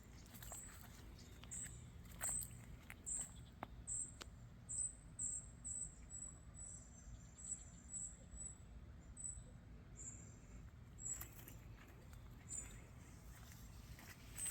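Faint outdoor ambience: a short, high, thin chirp repeating about twice a second, stopping near the end, with a few sharp clicks over a low steady hum.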